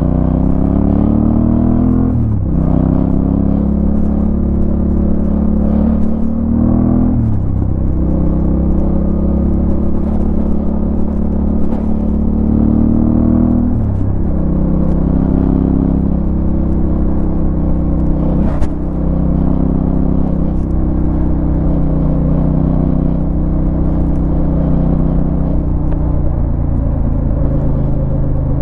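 Yamaha Ténéré 700's parallel-twin engine pulling through the gears. The revs climb and fall away at upshifts about two, seven and fourteen seconds in, then hold fairly steady. A short knock comes about eighteen seconds in.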